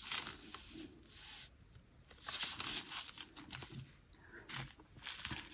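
Soft rustling and scratching of hands at work: small plastic bags of diamond-painting drills crinkling and a pen ticking off a colour on the paper chart, in short irregular bursts.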